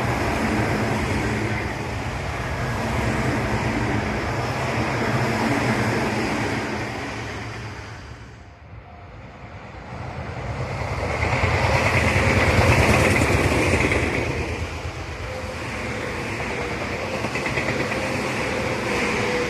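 Tobu Tojo Line electric commuter trains passing at speed, wheels running on the rails. The noise drops away sharply about eight seconds in, then another train passes, loudest a few seconds later.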